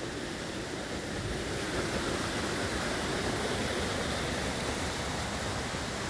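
Steady, even rushing noise of falling water from the waterfalls.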